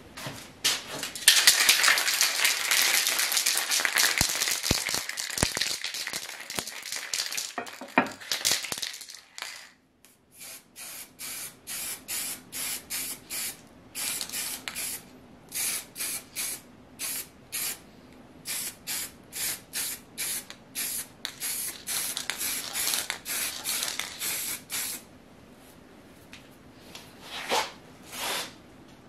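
Aerosol spray-paint can spraying paint: one long spray lasting several seconds, then a long run of short spurts, roughly one or two a second, with two last spurts near the end.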